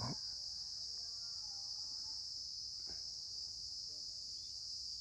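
Steady high-pitched background chorus of crickets, unbroken through the pause, with a faint click a little before the middle.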